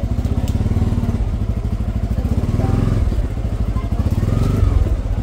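Motorcycle engine running at low speed while being ridden slowly, a steady rapid low pulsing that swells briefly near the end. Background crowd chatter.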